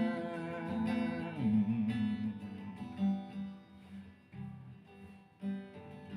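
Acoustic guitar playing a slow run of chords, each struck and left to ring before the next.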